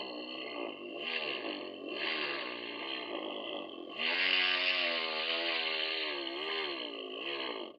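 Homemade PVC drilling machine's electric motor running, its pitch dipping and rising as the load on the bit changes, louder from about halfway, then cutting off abruptly near the end.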